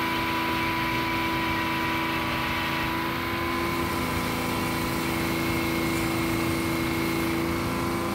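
Sawmill machinery running with a steady hum, its pitch unchanging.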